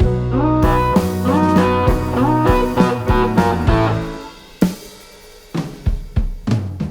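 Background music: a tune with pitched instrument notes and a drum kit, thinning out to drum hits about four seconds in and building back up near the end.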